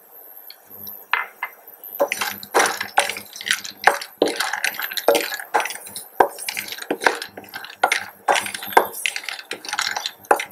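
A wooden spatula stirring cashews in a pan of hot ghee: irregular scrapes and knocks of the spatula against the pan, with the nuts clattering. The stirring starts about two seconds in.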